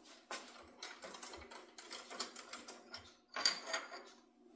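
Steel workpiece and machine vise being handled at a milling machine, metal on metal: a string of light clicks and knocks, then a short, louder metallic rattle with a ring about three and a half seconds in.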